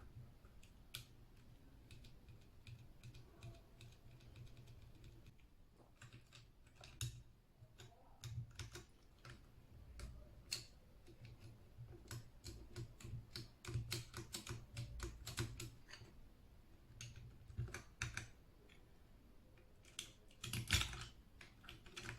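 Faint, irregular plastic clicks and clacks of a mechanical keyboard being worked on by hand, with keycaps pushed down onto their switches and keys pressed. The clicks come in bunches, getting busier about a third of the way in, with the loudest cluster near the end.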